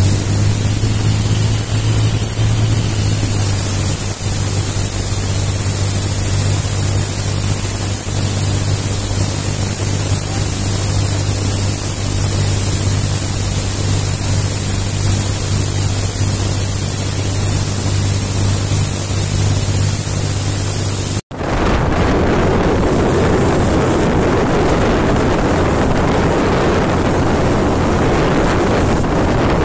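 Motorboat engine running at speed with a steady low drone and a faint high whine. After a brief dropout about two-thirds through, wind noise on the microphone over rushing water takes over.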